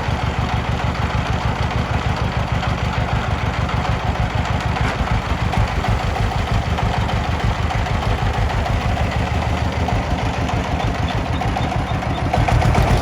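Diesel engine idling with a fast, even chugging beat, picking up a little near the end.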